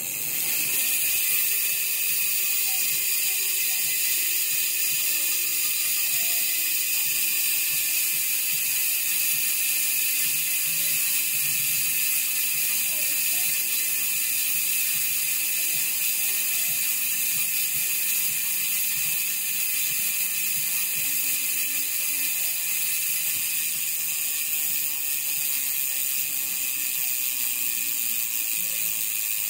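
ARC MT009 rear hub's ratchet freehub clicking as the spun rear wheel coasts: a steady, fast, fine-toothed high buzz that slowly slows as the wheel loses speed. The hub is still as loud after seven months of use.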